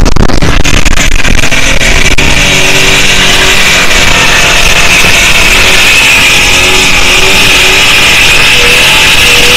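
Holden VP Commodore's 3.8-litre V6 through a 3-inch exhaust, held at high revs during a burnout, with the note wavering only slightly, while the rear tyres squeal steadily as they spin. Very loud.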